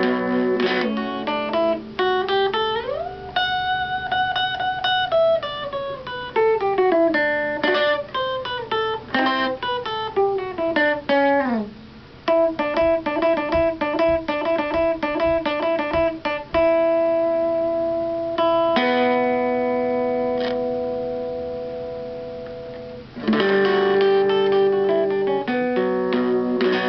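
Electric guitar played through a Soviet Alpinist 418 transistor radio converted into a mini guitar amp, with a germanium GT404 output stage. Single-note lines with slides up and down come first. About two-thirds of the way through, a chord is left ringing for several seconds and fades slowly, and the playing picks up again near the end.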